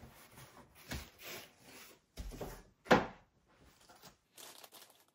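A cardboard box is slid away from a plastic-wrapped backpack on a wooden table: intermittent scraping and rustling, with a light knock about a second in and a sharper, louder knock about three seconds in.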